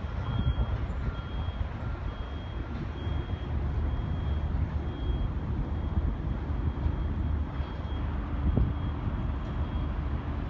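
A vehicle's reversing alarm beeping about once a second, a short high-pitched tone each time, over a steady low rumble.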